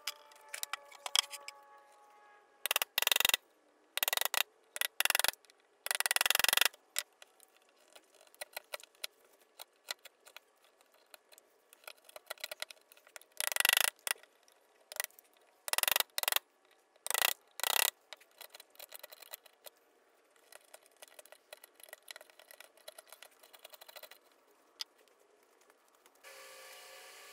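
Bench chisel paring walnut: a series of short scraping cuts, in two bunches, as it shaves out the end of a hole in the slab, with many small sharp taps and clicks between them. A steady hiss starts near the end.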